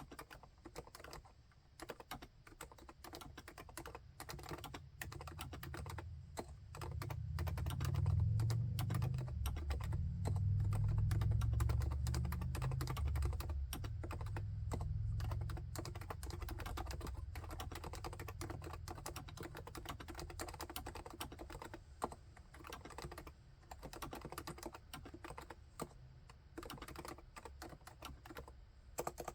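Continuous fast typing on a full-size Realforce keyboard with silent Topre (electrostatic capacitive) switches and HiPro-profile keycaps, keystrokes coming in dense runs. A low rumble rises under the typing about seven seconds in and fades out by about sixteen seconds.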